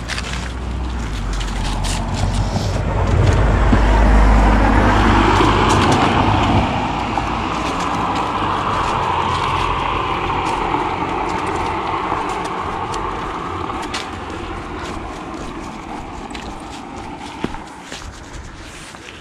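A car driving past on the street, its engine and tyre noise swelling to a low rumble about four seconds in, then fading away as it drives off.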